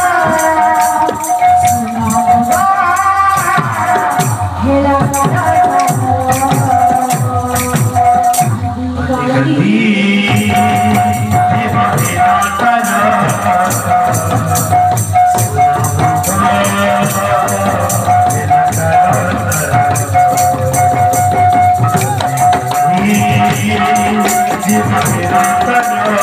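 Kirtan music: a woman's voice singing a melody over a steady held tone, with a drum and jingling hand cymbals keeping a fast, steady beat.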